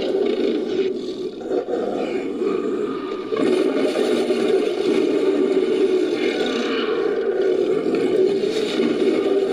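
Layered creature sound effect: a long, rough roar built from movie-monster and big-cat roars. It eases off about a second in and swells again about three seconds in.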